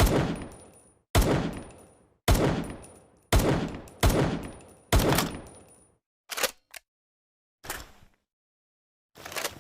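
Makeshift sound effect imitating M1911 pistol shots: six sharp bangs about a second apart, each trailing off over roughly a second, followed by three shorter, quieter clacks.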